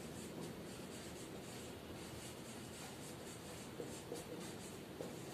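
Marker writing on a whiteboard: a faint run of short, irregular strokes as letters are written out.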